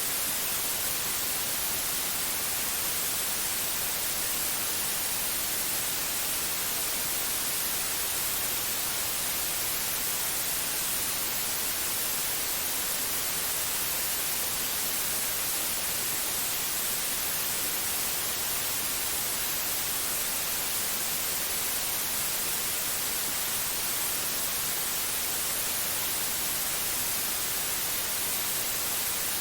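Steady, unbroken white-noise hiss, heaviest in the high treble, with no change in level.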